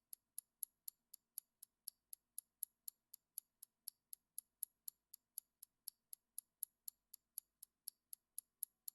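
Clock-like countdown ticking sound effect: short, sharp, high-pitched ticks at about four a second, marking the seconds of the answer countdown.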